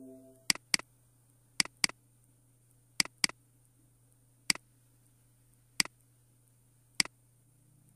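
Computer mouse button clicks: three quick double-clicks over the first three seconds, then three single clicks spaced more than a second apart.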